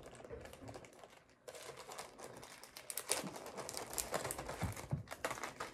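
Plastic zip-top bag crinkling and rustling as it is handled and pressed shut along its seal, with a brief dropout about a second in.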